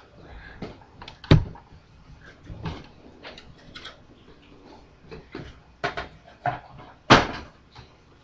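Clicks and knocks from die-cast model cars being handled and set down, with two louder knocks about a second in and near the end.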